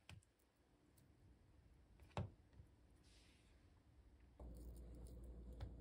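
Near silence with a few soft knocks and clicks of a knife and ham slice on a wooden cutting board, the sharpest about two seconds in. A low steady hum sets in suddenly about four and a half seconds in.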